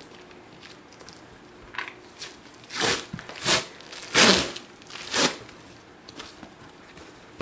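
Packing tape being ripped off a cardboard box: a few faint crackles, then four short, loud tearing rips between about three and five seconds in.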